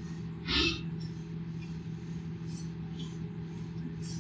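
Steady low hum and hiss on an old cassette recording of a quiet room, with one short noise about half a second in.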